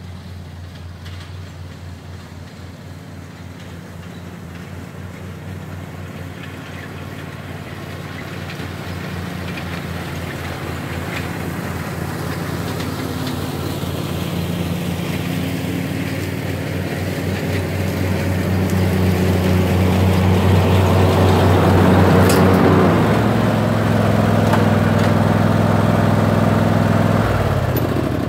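Riding lawn mower engine running steadily and growing louder as it comes closer. Its note shifts about two-thirds of the way through, then drops and winds down at the very end as it is throttled back.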